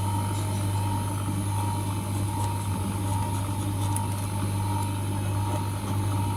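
Optical lens edging machine running: a steady low motor hum with a constant higher whine.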